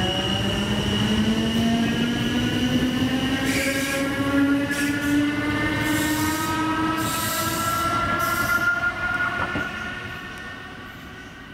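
Green LHB-built Class 8100 DART electric train accelerating away, its traction motors whining in several tones that climb steadily in pitch. Two bursts of high hiss come from the wheels and rails partway through. The sound fades over the last couple of seconds as the train draws off.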